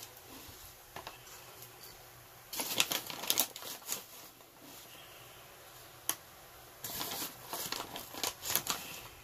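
Baking soda being scooped out of its bag with a plastic measuring cup: crinkling of the bag and scraping of the powder in two spells, about three seconds in and again near the end, with a single sharp click in between.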